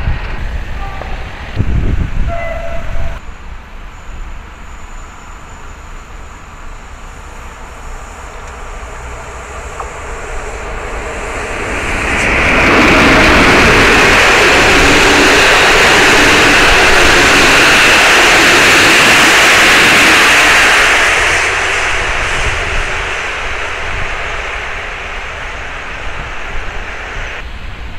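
A passenger train of PKP Intercity coaches passes close by at a level crossing, with a loud, even rushing of wheels on rails. The noise builds over a couple of seconds, holds for about eight seconds, then drops away.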